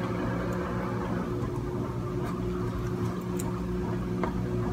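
A steady low hum with a few faint, light clicks over it as the plastic popsicle molds are handled.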